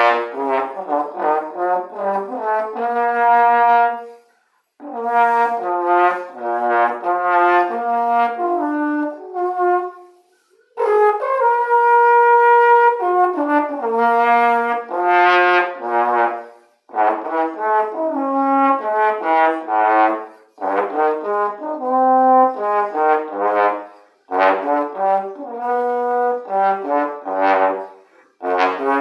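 Yamaha YSL-354 tenor trombone played solo, running scales note by note in phrases of a few seconds with short breaths between them, and one longer held note about a third of the way in.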